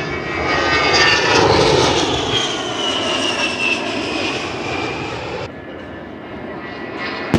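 An A-10C Thunderbolt II's twin turbofan jet engines in a low pass, swelling to their loudest about a second in. A high whine then falls in pitch as the jet goes by. The sound drops away abruptly about five and a half seconds in, leaving a quieter engine noise.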